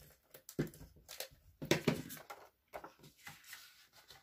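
Paper and cardstock being handled by hand: irregular rustles and light taps as a sheet is pressed down and the folded card base is picked up, with the busiest rustling a little under two seconds in.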